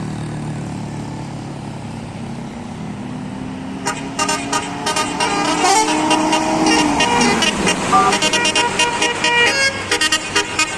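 A bus's Basuri multi-tone telolet horn plays a quick melody of short changing notes, starting about four seconds in, over the bus's diesel engine, whose pitch rises and then drops near the seventh second.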